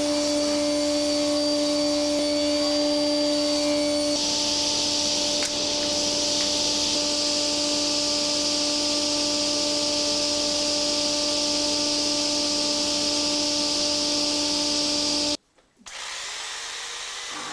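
Sliding table saw running steadily with a constant whine; about four seconds in its sound changes and grows hissier. It cuts off abruptly near the end, and a quieter electric jigsaw runs on, cutting a board.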